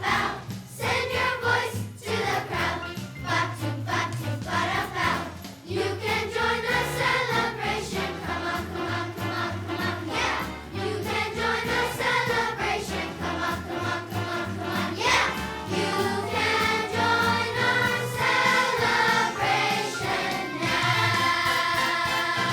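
Elementary school children's choir singing a Christmas song together over an instrumental accompaniment with a bass line and steady beat.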